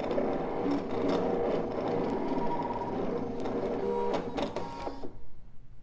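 Brother ScanNCut CM350 cutting machine running a cut in self-adhesive vinyl, its motors whirring steadily with small clicks. It stops suddenly near the end as the cut finishes.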